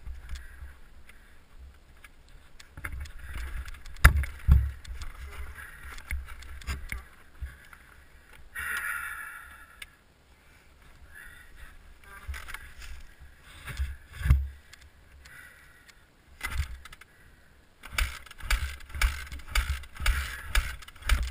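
Irregular thumps, knocks and scrapes from the dirt bike being handled on a rocky trail, with the Yamaha YZ250F's engine not running; a quick run of regular thumps comes near the end.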